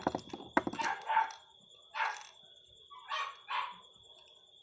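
A dog barking about seven times in short, separate barks, several in quick succession at first, then one, then a pair about three seconds in.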